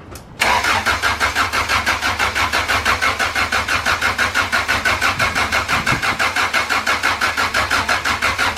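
Starter motor cranking a turbocharged Honda B20 VTEC four-cylinder engine, an even rhythmic chugging of about five to six pulses a second that begins about half a second in and never catches. The engine is being turned over to prime oil through the new turbo.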